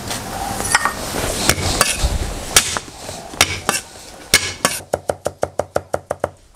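Cleaver chopping garlic on a thick round wooden chopping block: a few scattered knocks at first, then, about five seconds in, a fast, even run of chops, about seven a second.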